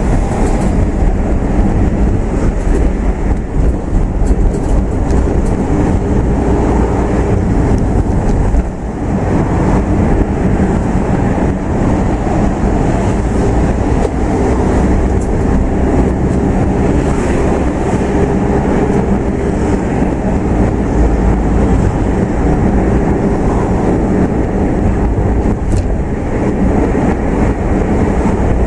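Steady low rumble of a car driving on a city road: tyre and engine noise, with a brief dip about nine seconds in.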